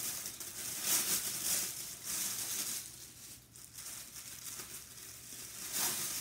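Wrapping being crinkled and rustled by hand as a package is unwrapped, in several louder swells.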